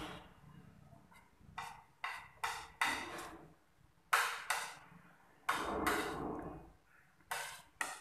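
A metal spoon clinking and scraping against a plate as the last of a serving of chaat is scooped up: about nine sharp clinks in irregular succession, some drawn out into a short scrape.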